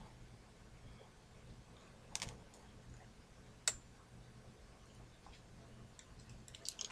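Quiet, sparse crackling of a wood cook fire: scattered small ticks, a couple of louder pops about two seconds in and a single sharper click about three and a half seconds in.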